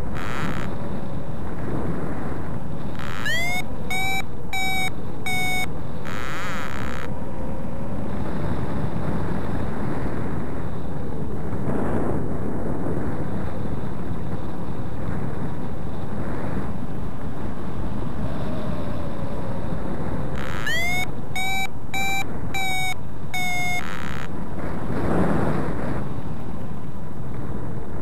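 Wind rushing over the microphone in paraglider flight, with a variometer beeping twice in short runs of about two beeps a second, each run starting with a rising tone: the vario's climb tone, signalling that the glider is in lift.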